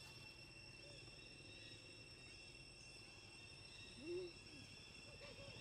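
Faint, steady high-pitched insect drone, with one short low call, rising then falling in pitch, about four seconds in.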